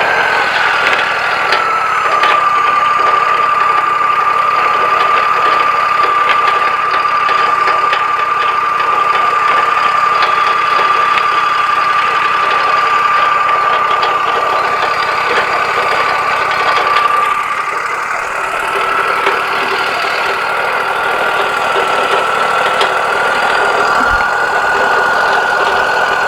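Wood-Mizer LT40 bandsaw mill running steadily. Its machine pitch sags about two seconds in as it comes under load, holds low, then rises again around two-thirds of the way through as the load comes off, typical of the blade running through a cut in a pine log.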